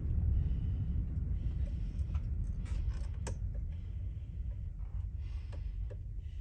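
A low, steady hum with a few faint, light clicks and ticks of fingers and thread handled against the sewing machine's plastic thread guides near the needle.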